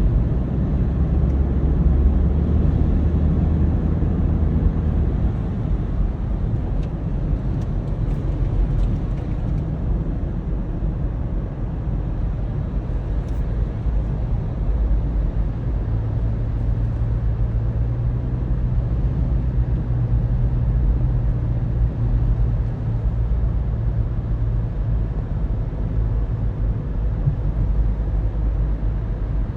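Car driving, heard from inside the cabin: a steady low engine and road rumble. The engine hum rises to a slightly higher pitch about halfway through.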